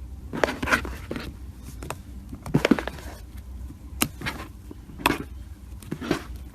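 Slime being squeezed and pressed by hand, giving about five short clusters of crackly pops and clicks.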